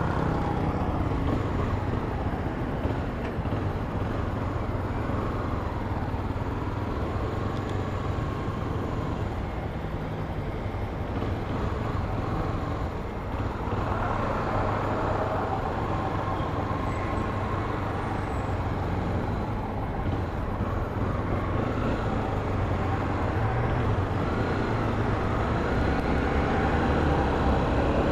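Steady engine and road noise from a car on the move, a low rumble under an even hiss with no pauses.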